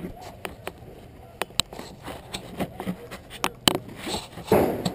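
Scattered sharp cracks of airsoft guns firing at irregular intervals, with faint distant voices. A louder scraping rustle, like gear or a rifle shifting against the roof, about four and a half seconds in.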